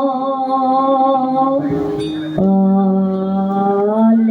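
A voice singing a Javanese wayang suluk in long held, drawn-out notes, moving to a new lower note about two and a half seconds in.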